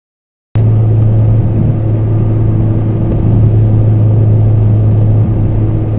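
Car engine fitted with aftermarket exhaust headers, idling steadily with a raspy exhaust note. It comes in abruptly about half a second in.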